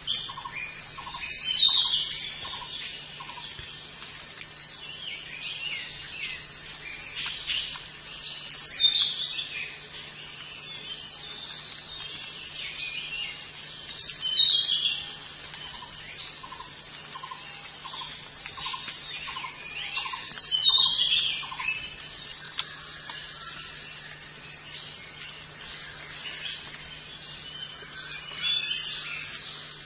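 Forest birds calling: a loud, high chirping phrase recurs about every six seconds, and twice a run of lower, evenly spaced notes repeats about twice a second. A faint, steady low hum runs underneath.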